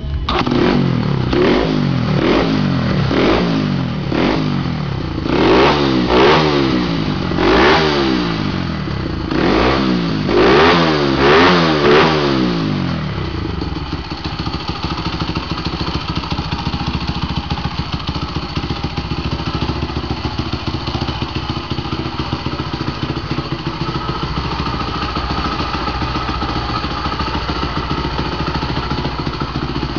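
Honda Gorilla's single-cylinder four-stroke Takegawa Super Head engine with a dry clutch, revved in a series of quick blips for about the first thirteen seconds, some rising higher than others, then settling to a steady idle.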